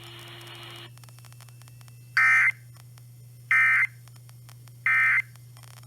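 Three short bursts of screeching data tones, each about a third of a second and evenly spaced about a second and a half apart, typical of the Emergency Alert System (SAME) end-of-message code that closes a broadcast warning. Before them there is a second of radio hiss, and a low hum runs under everything.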